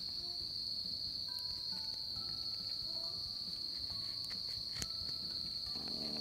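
Insects, crickets or similar, trilling in one steady high unbroken note, with soft background music notes stepping along underneath and a few faint small clicks.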